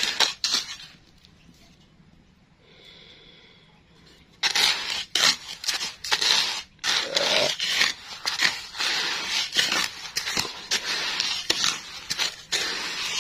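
Wooden spatula stirring and scraping sand in a clay frying pot, used for sand-frying crackers: a quick scrape, a quiet gap of about three seconds, then rapid, gritty rasping strokes one after another from about four seconds in.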